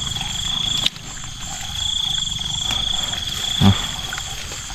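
Night chorus of insects and frogs: a steady high insect trill over a low, rapid croaking chorus. A sharp click about a second in and a short low thump near the end.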